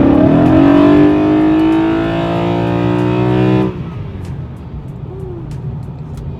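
BMW E93 M3's V8 accelerating hard with its exhaust valves closed: the engine note climbs quickly, holds steady, then drops away abruptly a little under four seconds in, leaving a lower running and road noise.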